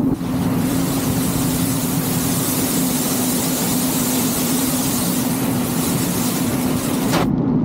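Loud rush of air from high-speed wingsuit flight over a steady low hum. The rush cuts off suddenly near the end with a short falling sweep.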